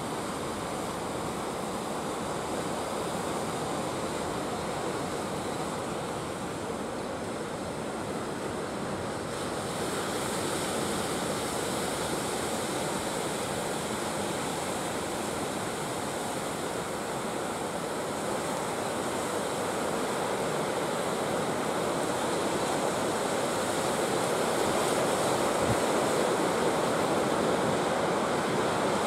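Ocean surf breaking and washing toward the shore: a steady wash of waves that grows a little louder in the last few seconds.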